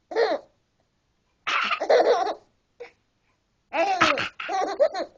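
A person coughing and a seven-month-old baby laughing in reply, in several short bursts; the last burst ends in a quick run of giggles.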